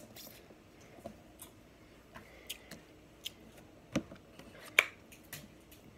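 Scattered small clicks and cracks of hands picking through snow crab shells and seafood in a foil pan, with two sharper snaps about four and nearly five seconds in, the second the loudest.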